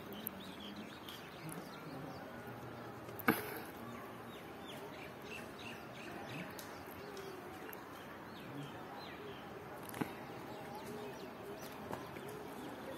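Small birds chirping faintly and on and off over a quiet outdoor background, with a sharp click about three seconds in and a lighter one about ten seconds in.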